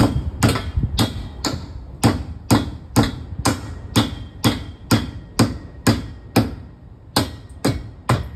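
Hammer driving nails into wooden formwork overhead: steady, sharp strikes about two a second, with a short pause about two-thirds of the way through.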